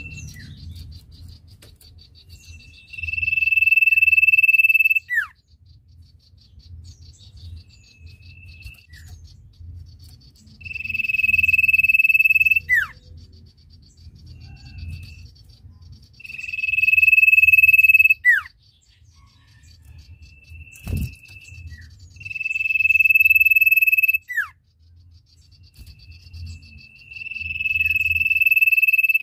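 Common iora (sirtu) singing: five long, loud, steady high whistles of about two seconds each, each ending in a quick downward slur, with a few short softer notes between them. A faint high pulsing buzz runs behind, and there is a single sharp click about two-thirds of the way through.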